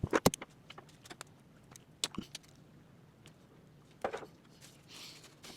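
A quick cluster of sharp clicks and knocks at the start, then a single click about two seconds in: wires and small metal parts being handled while the wires are fitted to a starter solenoid's terminals.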